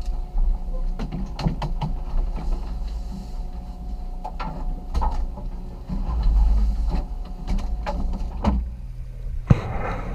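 Fishing boat's engine running with a steady low hum, with scattered clicks and knocks from handling on deck. Near the end a sharp knock, then a rushing hiss.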